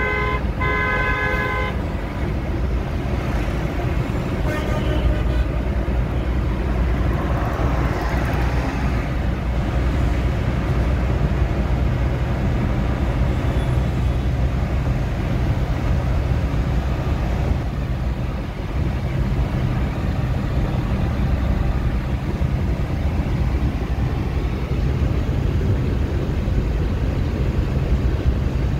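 Steady low road and engine noise heard from inside a moving car on a highway. A vehicle horn sounds in two blasts right at the start, the second ending a little under two seconds in.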